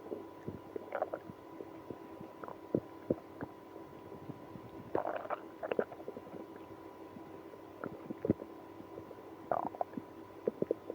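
Human stomach and bowel gurgling, with irregular short pops and squelchy rumbles in clusters about a second in, around five seconds and near the end. This is a digestive upset in a person with IBS after drinking milk and prune juice.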